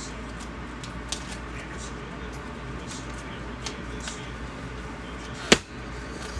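Steady low hum and hiss, with a few faint ticks and one sharp click about five and a half seconds in.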